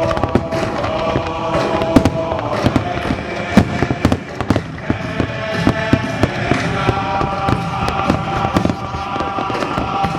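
Fireworks going off in many sharp, irregular bangs and crackles, with music playing under them.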